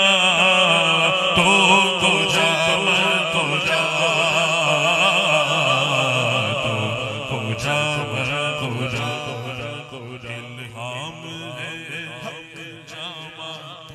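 A man's voice singing a naat unaccompanied into a microphone: long, drawn-out melismatic notes with a wavering vibrato. The singing fades out over the last few seconds.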